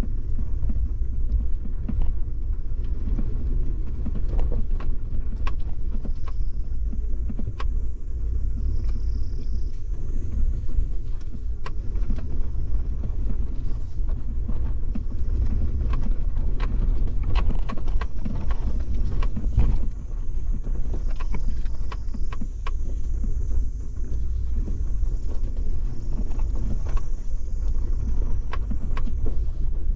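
Suzuki Jimny driving over rough ground: a steady, heavy low rumble from the vehicle, broken by frequent short knocks and rattles.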